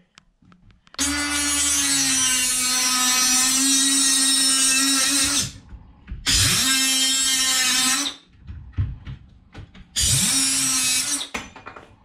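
Cordless Ryobi power tool running at a steady pitch in three spells while worked on the end of a length of wiring channel: one long run of about four and a half seconds, then two shorter ones.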